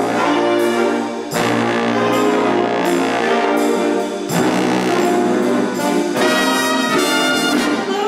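Big band playing a bright swing tune, with the trombones and trumpets carrying the line over the saxophones. Fresh phrases come in about a second in and again about four seconds in, and a quick repeated figure plays near the end.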